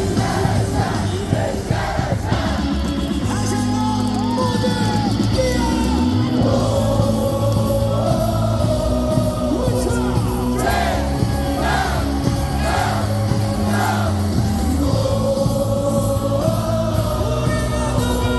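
A stadium crowd of thousands singing a baseball cheer song in unison over loud amplified music with a steady bass line.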